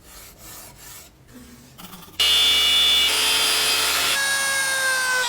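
Light scraping and rubbing, then about two seconds in a power tool starts abruptly and runs with a loud, steady whine. Its pitch sags slightly near the end.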